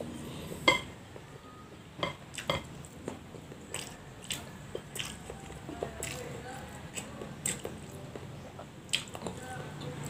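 Close-up eating sounds: a crab shell being cracked and pulled apart by hand, fingers and food on a plate, and chewing. These come as a string of sharp clicks and cracks, the loudest a little under a second in.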